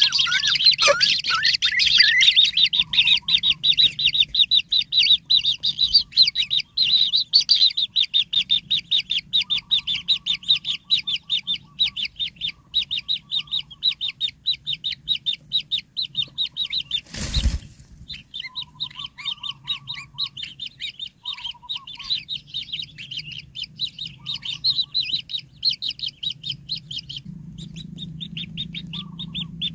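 White-throated kingfisher nestlings begging: a fast, continuous stream of high, short chirps, many per second, with a brief pause near the end. One dull thump sounds about seventeen seconds in.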